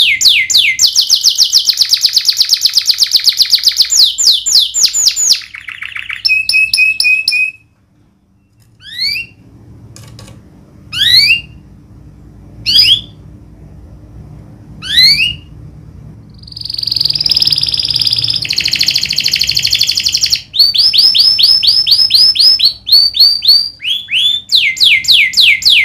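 Domestic canary singing loudly: rapid rolling trills of repeated falling notes, a brief pause, then a few single sharp rising whistles about two seconds apart, a harsh buzzy phrase, and fast rolling trills again near the end.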